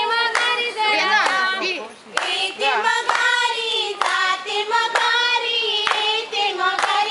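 Group of women singing a folk song together and clapping their hands in time, about one clap a second, as they dance in a circle.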